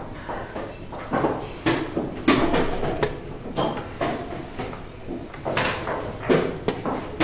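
Wooden chess pieces clacked down on the board and chess clock buttons slapped in a fast blitz game. The result is a string of sharp knocks and clicks at uneven spacing, the loudest about two seconds in and again near six seconds.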